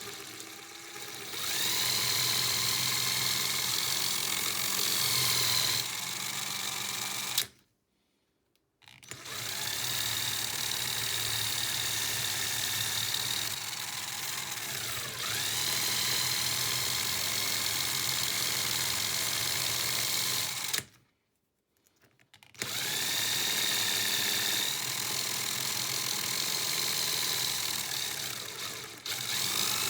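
Small electric power tool running steadily, machine-polishing a handmade fishing spoon lure; its whine dips and climbs in pitch as the load changes. The sound stops dead twice for about a second.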